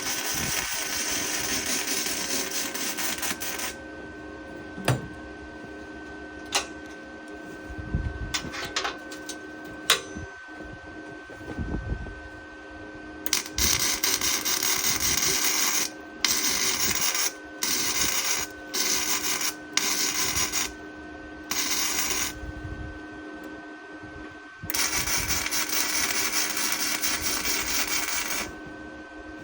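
Beaver MIG 270 welder running gasless flux-core wire, crackling in bursts: a long weld bead at the start, a string of short tack welds in the middle, and another bead near the end. A few sharp metallic taps fall in the gaps, over a steady faint hum.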